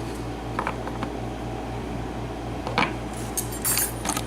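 Light clicks and taps of small padlock pins and parts being handled, a few scattered and a short cluster near the end, over a steady low hum.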